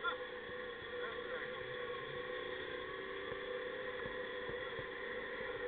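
ATV engine running at a steady pace, heard faint as a steady hum with a few held tones.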